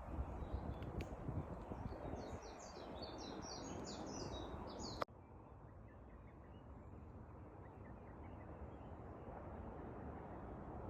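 A songbird singing a fast series of high chirping notes for about three seconds over low wind noise. The song cuts off abruptly with a click about five seconds in, leaving a quieter, steady outdoor background with faint distant chirps.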